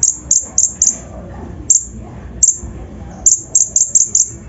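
Kolibri ninja sunbird singing: short, sharp, high-pitched notes, each dropping quickly in pitch. A quick run of four opens the phrase, two single notes follow, and a fast run of seven starts near the end.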